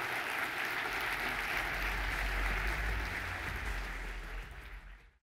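Audience applauding, a dense even patter of many hands clapping that fades near the end and cuts off abruptly, with a low rumble underneath from about a second in.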